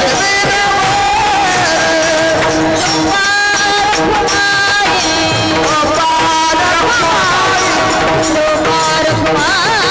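Devotional kirtan music: a voice singing over sustained, reed-like held notes, with a steady percussion beat of jingling and rattling strokes.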